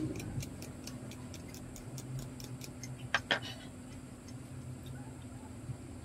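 Ratcheting hand screwdriver clicking fast and evenly, about five clicks a second, for the first three and a half seconds, with two louder clicks just after three seconds; a faint steady hum runs underneath.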